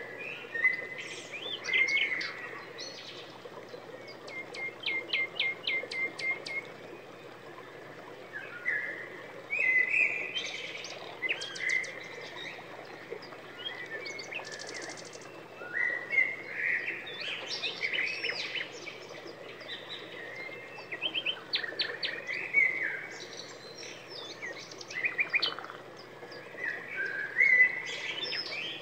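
Songbirds singing continuously: varied chirps, whistled phrases and quick rattling trills, one after another, over a faint steady hiss.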